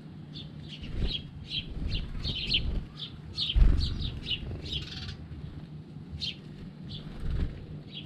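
House sparrows chirping: a busy run of short, high chirps that thins out after about five seconds. A few low thumps break in, the loudest about three and a half seconds in.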